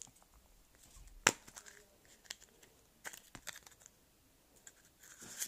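Hands opening a Kinder Surprise egg's wrapping and plastic capsule: soft crinkling and rustling with scattered sharp clicks, the loudest about a second in.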